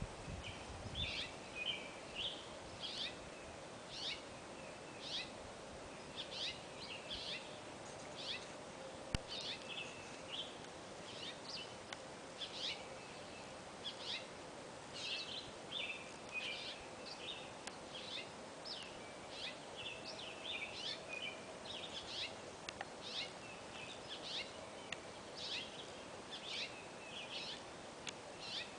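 Birds chirping and calling, a steady stream of short high chirps, over a faint steady low tone. A single sharp click comes about nine seconds in.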